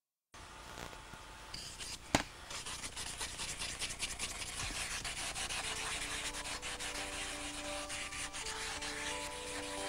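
Steady rubbing against a red-lacquered wooden vessel being worked by hand, made of many fine strokes, with one sharp tap about two seconds in. Faint music tones come in during the second half.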